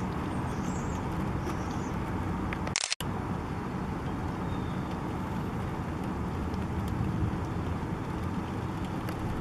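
Steady outdoor city background noise, a low even rumble and hiss like distant traffic. Just before three seconds in, a short sharp hiss is followed by a brief dropout to silence.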